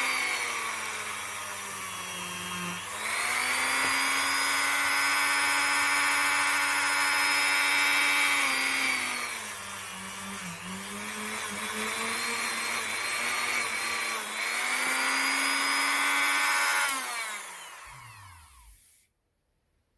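Dremel rotary tool polishing the small steel hammer and trigger parts of a revolver, its high motor whine dropping in pitch twice as it is pressed against the metal. It is switched off about 17 seconds in, and the whine falls away until it stops about two seconds later.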